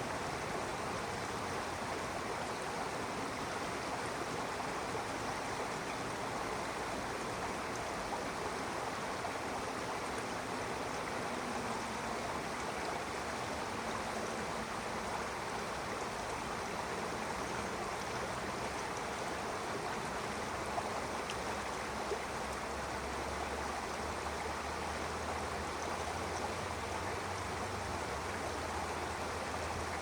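A stream running steadily over rocks, a continuous even rush of water. A low rumble joins in underneath about three-quarters of the way through.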